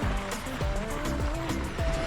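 Background music with a steady beat: deep kick drums that drop in pitch, ticking hi-hats and a simple held melody line.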